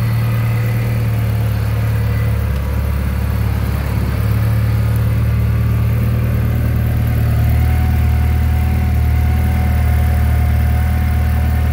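VW Golf Mk4 1.8T four-cylinder turbo engine (AGU) running steadily at idle. About seven seconds in its note shifts slightly and a faint steady whine joins it.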